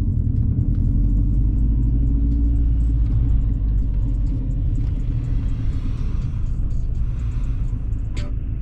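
A 2011 Subaru WRX's turbocharged flat-four engine running steadily with a low rumble as the car is driven, heard from inside the cabin. A single short click sounds near the end.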